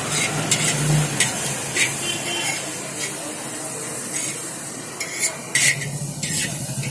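Chow mein noodles and cabbage sizzling in a large wok over a gas flame, with a metal spatula scraping and clacking against the pan in short strokes. A low hum runs underneath.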